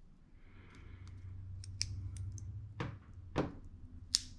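Small metal tools clicking and tapping against an old lighter while working at its stuck flint screw: a few sharp separate clicks after soft handling noise.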